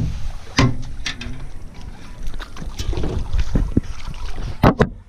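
Knocks and clatter of gear being handled in a small boat as a catfish is netted, the loudest pair of knocks near the end, over a low rumble of wind on the microphone.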